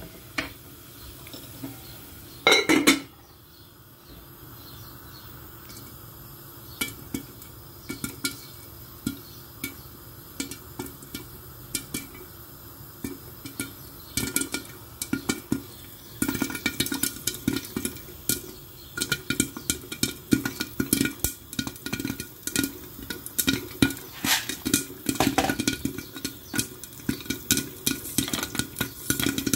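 Popcorn kernels heating in oil in a covered pot: a loud metal clatter about three seconds in, then a faint sizzle, then sharp pops against the lid that start few and far between and come thick and fast from about halfway.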